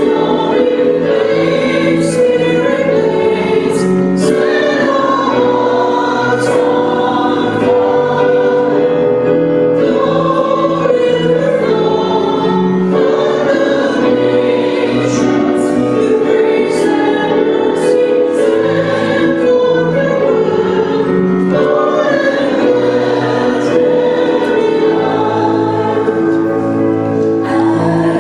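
A group of voices singing a hymn with instrumental accompaniment in steady held notes.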